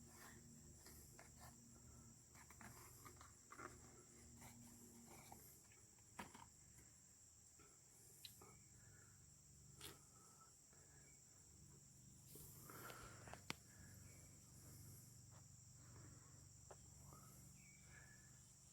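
Near silence, with a faint steady high trill of crickets and a few light clicks from handling.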